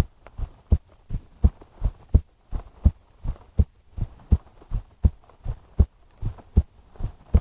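Human heartbeat recorded close up for binaural ASMR: a steady lub-dub, a strong low thump and a softer one, at about 80 to 85 beats a minute.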